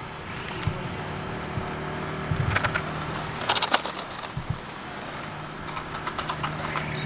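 HobbyKing HKM-390 1/8-scale brushless electric RC motorcycles running laps on a tarmac track, over a steady low hum, with three short clusters of sharp clicks: about two and a half seconds in, around three and a half seconds, and from about six seconds to the end.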